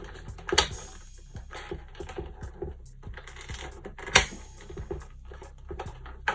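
Small plastic clicks and knocks from handling a plastic Stormbreaker axe replica while working at its battery compartment with a screwdriver, two of them louder, about half a second and about four seconds in, over background music.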